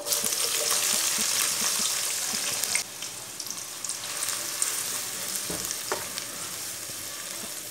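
Sliced onions sizzling as they drop into hot oil in a metal kadai, loudest for the first three seconds and then settling to a softer fry, while a spatula stirs them with a few knocks against the pan.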